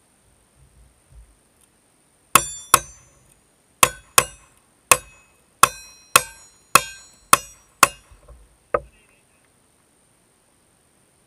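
A string of ten gunshots in quick, uneven succession, from a cowboy action shooter's firearm, followed by a fainter crack.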